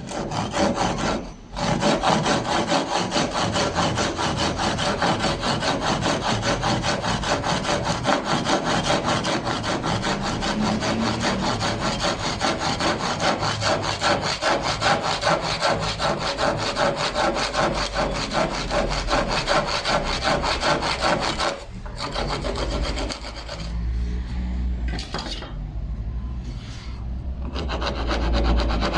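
Handsaw cutting through wood with quick, even strokes. The sawing breaks off briefly about 22 s in, then goes on less steadily.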